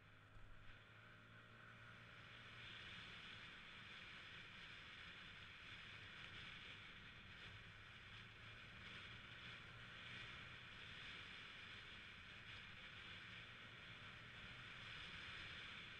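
Faint, steady sound of a Yamaha 125cc scooter's engine running as it rides along, with a low hum under a steady hiss of wind and road noise. It grows a little louder over the first few seconds.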